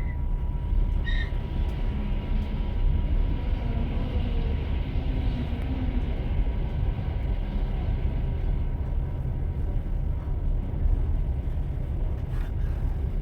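Train running along the track: a steady low rumble of wheels on rails, with a faint hiss that swells and fades over a few seconds and a couple of light clicks.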